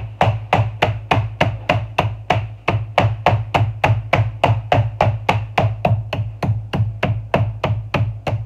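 Wooden meat mallet pounding pork loin cutlets through plastic wrap on a cutting board: a steady run of quick thuds, about four a second, tenderizing and flattening the meat.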